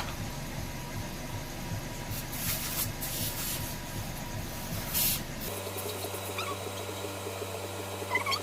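Portable 12 V tyre inflator: short hisses of air, then about halfway through its compressor switches on and runs with a steady hum. A cat meows briefly near the end.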